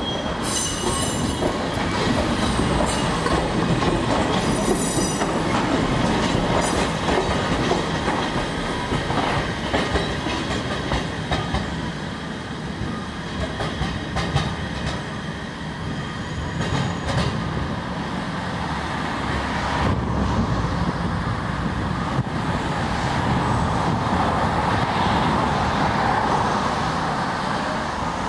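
Fukui Railway 610-series tram running on street track, its wheels rumbling and clattering over the rail joints and points.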